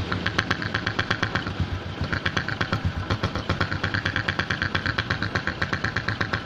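Honda Supra X 125's single-cylinder four-stroke engine idling with a fast, even pulse and a rasping note that drops out briefly a couple of times. This is the rough 'ngorok' (snoring) idle that the mechanic puts down to weak vacuum at the membrane, a sound typical of a vacuum leak; in this bike the leak was a breather hose cracked at its clamp.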